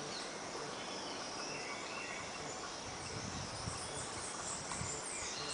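Steady outdoor insect chirring, with faint bird chirps over it and some low rumbling in the last couple of seconds.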